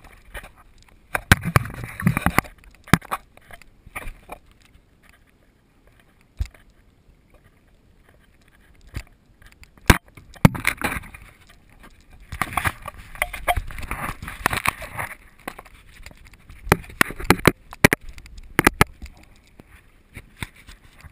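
Kayak paddling: bursts of paddle strokes splashing and sloshing in the water, with sharp knocks on the plastic kayak hull, separated by quiet stretches of gliding.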